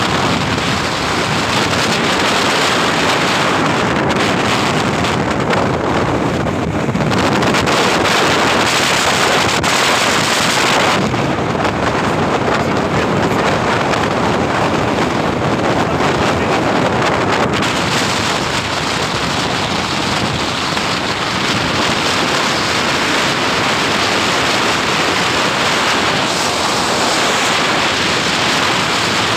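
Wind buffeting the microphone in the open back of a moving truck at road speed, a loud steady rush mixed with tyre and road noise.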